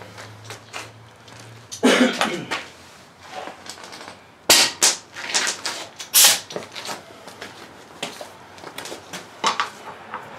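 Clicks, knocks and a few short sharp hisses from a tire pressure gauge being handled and pressed onto a spare tire's valve stem to check its air pressure.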